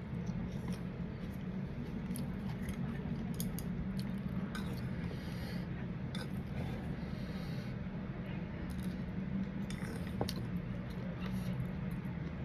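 Eating sounds: scattered small clicks and taps of cutlery and dishes while eating papaya salad with crab and shrimp, over a steady low hum.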